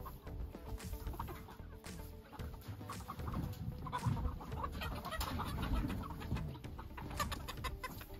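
Young hens calling as they are chased inside a low wire-mesh chicken pen, over the rustle of grass and clothing as a person crawls after them, with scattered small knocks.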